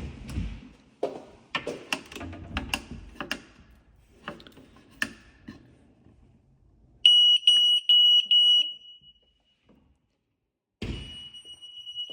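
Carbon monoxide detector sounding on its test button: a loud, high-pitched electronic beep in about five quick pulses, then a longer steady beep near the end. Clicks and knocks of handling come first. It is the alarm going off on test, the sign that the detector works.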